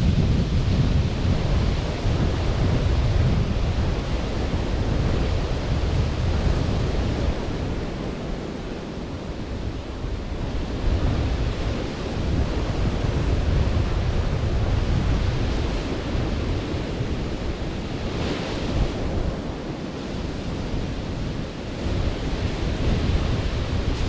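Sea surf washing onto a beach, with wind blowing across the microphone; the low buffeting swells and eases every few seconds.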